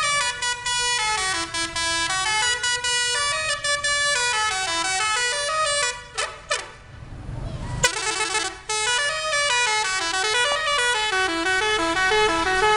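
Indonesian bus "telolet" musical air horn playing a quick tune of stepped notes that rise and fall. It breaks off about six seconds in, and after a sharp click a second or two later it starts up again.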